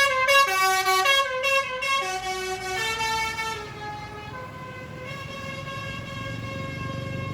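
Tour bus's multi-tone 'telolet' (basuri) air horn playing a stepped melody, its tones changing pitch every half second or so, then fading to a quieter held chord about four seconds in, with a low rumble building near the end.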